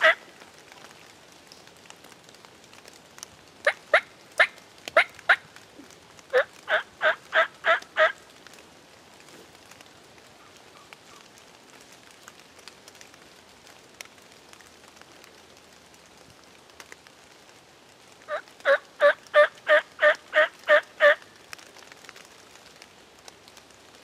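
Wild turkey yelping in runs of evenly spaced yelps, about three or four a second. A short run comes about four seconds in and another soon after, with a longer run of about ten yelps near the end.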